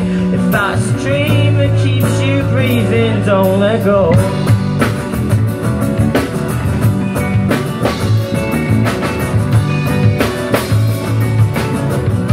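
Live rock band playing: steady bass with a lead line bending up and down in pitch over the first few seconds, then drum hits coming through more densely.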